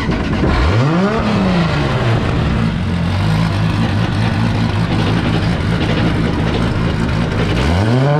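Pro drift car's engine just fired up: its revs rise about a second in, fall back to a steady idle, then climb again near the end and hold high. The throttle is worked by a hand-pulled throttle cable, as the car has no pedals fitted.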